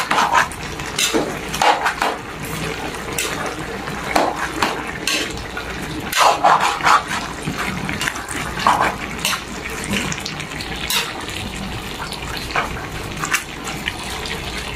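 A metal utensil stirring young jackfruit and shrimp in thick coconut cream in a metal wok: irregular scrapes and clinks against the pan with wet sloshing of the simmering sauce.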